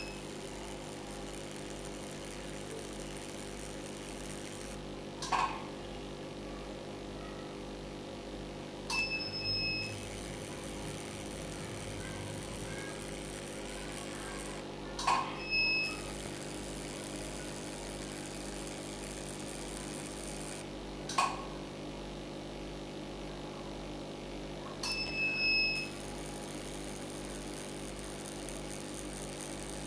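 Steady hum of a CO2 fractional laser unit, with a short burst from the handpiece every four to six seconds as it fires a pass on the skin. Four of the bursts are marked by a brief high beep.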